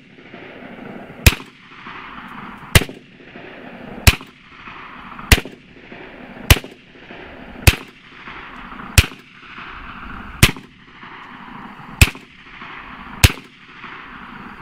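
BinTac T9 airgun firing ten sharp shots in a steady string, about one every 1.2 to 1.5 seconds. A steady hiss fills the gaps between the shots.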